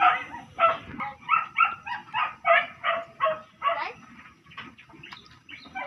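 A dog barking rapidly, about three barks a second, easing off to quieter, scattered sounds about four seconds in.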